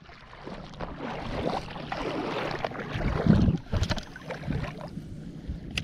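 Wind noise on the camera's microphone over choppy water, with a strong gust a little past halfway and a few light handling clicks.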